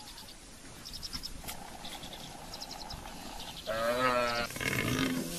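Cape buffalo calf bawling in distress while spotted hyenas bite into it. A long, level call runs for about two seconds, then a louder, wavering bawl comes near four seconds in.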